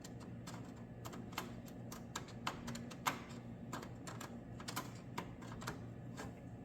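A marker tapping and scratching against the metal motor mount as its outline is traced, a string of irregular light clicks over a steady low hum.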